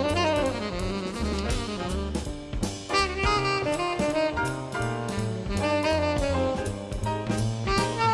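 Live jazz quartet: a tenor saxophone plays a flowing melody line over piano comping, bass and drums, with a ride cymbal keeping steady time.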